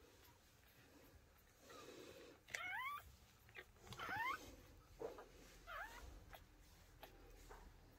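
Newborn American bully puppies squealing: three short, high cries that rise in pitch, the first about two and a half seconds in, the next two about a second and two seconds later.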